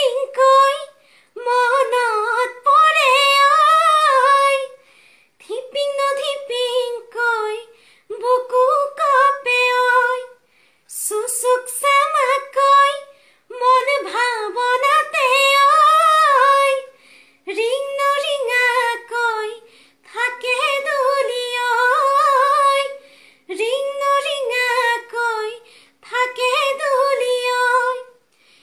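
A woman singing unaccompanied, in phrases of two to four seconds with short breaks for breath between them, her voice wavering and turning through the held notes.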